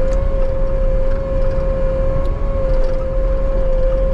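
Bobcat T77 compact track loader's diesel engine running: a low rumble under a steady high-pitched whine that holds one pitch throughout.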